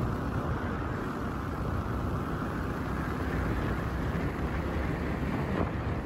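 Steady wind rumble on the microphone mixed with the noise of a moving road vehicle.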